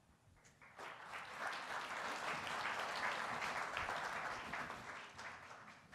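Audience applauding. The clapping starts about a second in, builds, and dies away near the end.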